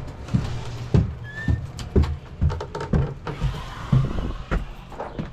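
Footsteps walking at a steady pace, about two steps a second, over a steady low hum.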